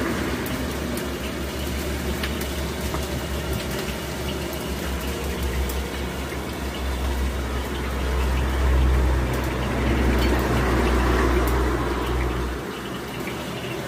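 Gas burner of a street-stall wok stove running steadily under the jumbo wok as it heats, with a deep rumble that swells in the middle and drops away near the end.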